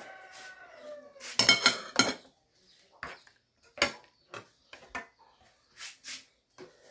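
Dishes and cutlery clinking on a breakfast table: a quick cluster of loud, ringing clinks about a second and a half in, then a scattering of lighter single knocks and taps.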